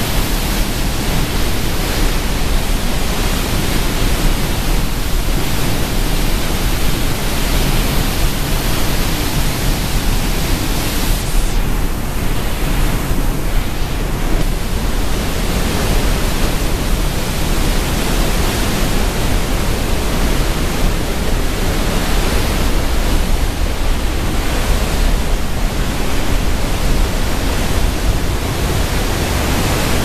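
A waterfall's torrent pouring through a narrow rock gorge: a loud, steady rush of water.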